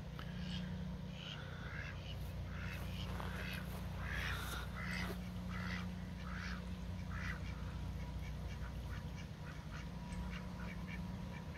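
Domestic ducks quacking in a long run of short repeated calls that thin out after about eight seconds, over a steady low rumble.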